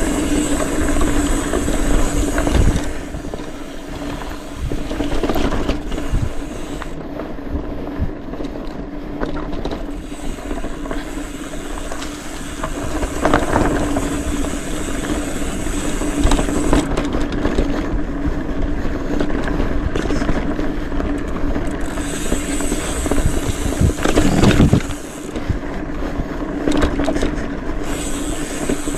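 Mountain bike riding fast down a dirt trail, heard from on the bike: wind on the microphone and tyres on dirt and gravel, with rattles and knocks from the bike over rough ground and a steady buzz underneath.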